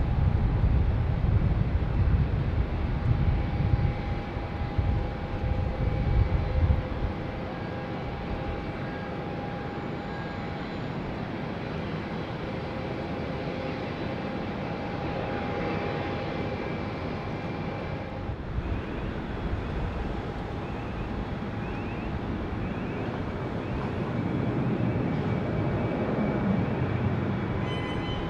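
Jet airliners heard from a distance: a low engine rumble from an Airbus A330 after landing fades about seven seconds in, leaving a quieter steady jet noise with a faint whine, and an arriving Airbus A380's rumble builds near the end.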